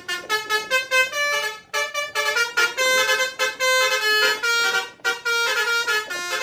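A quick melody of short, bright, buzzy notes in a horn-like tone, played in phrases with two brief breaks.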